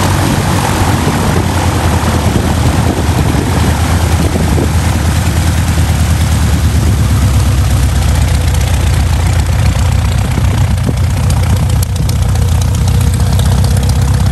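Robin DR400 light aircraft's piston engine and propeller running steadily at low taxi power as the plane taxis past.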